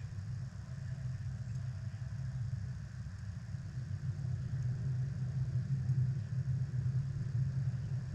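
Steady low rumble, getting a little louder about halfway through.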